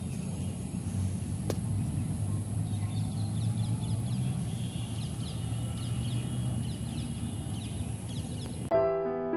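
Outdoor ambience with a low steady rumble and a single click about a second and a half in. A bird chirps over and over with short high calls from about three seconds in, and piano music starts near the end.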